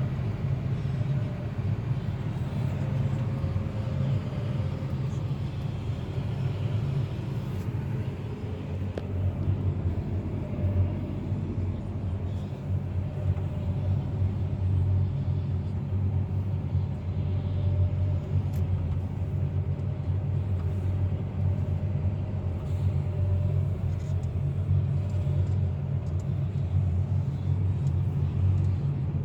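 A vehicle engine running steadily under way, with a low drone and rumble. The engine note drops a little about nine seconds in.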